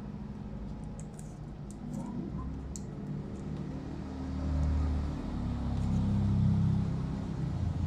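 Low rumble of a motor vehicle's engine, swelling from about two seconds in and loudest past the middle. A few faint small clicks and rustles of wire being handled in the first three seconds.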